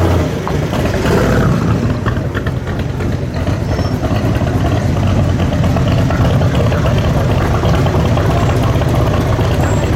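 A muscle car's V8 engine running steadily. The sound eases off slightly in the first few seconds, then holds even.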